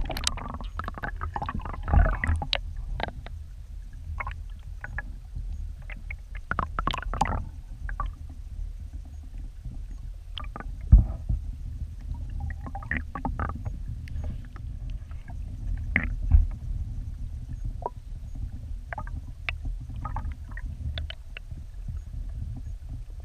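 Creek current heard underwater through a camera's waterproof housing: a steady, muffled low rumble with scattered clicks and ticks, and three louder knocks spread through.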